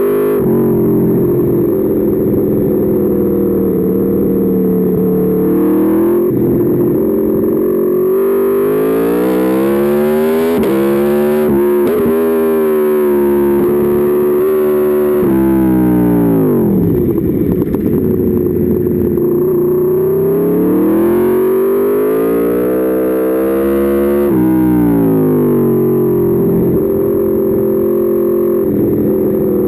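Aprilia Tuono V4's V4 engine under hard acceleration, the revs climbing and stepping back with each upshift, then falling steeply a little past halfway as the bike slows for a corner before pulling hard again.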